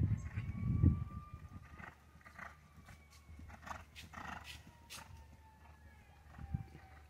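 Horse's hooves thudding on turf as it lands a show jump and canters away, the heaviest thuds in the first second, then lighter hoof clicks. A faint steady tone slowly falls in pitch behind it.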